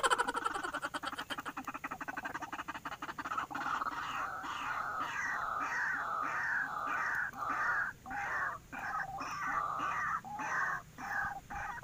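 White-breasted waterhen (ruak-ruak) calling. A fast run of croaking, clicking notes slows down over the first few seconds, then gives way to a repeated harsh call about twice a second.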